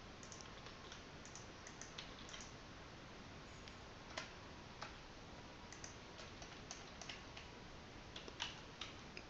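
Faint, sparse clicks of a computer keyboard and mouse, coming irregularly, a few at a time, over a low background hiss.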